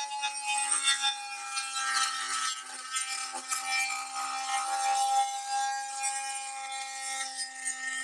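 Fein Multimaster oscillating multi-tool running with its blade plunge-cutting into plywood: a steady buzzing hum with a rasping scrape of the blade in the wood.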